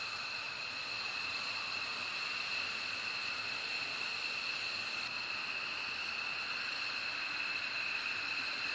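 F-15E Strike Eagle jet engines running at idle on the ground: a steady high-pitched whine in two tones over a constant rushing hiss.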